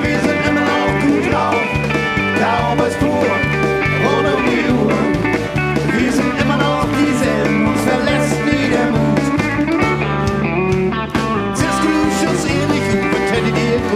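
Live country band playing an instrumental passage: a pedal steel guitar and guitars over a steady bass-and-drum beat.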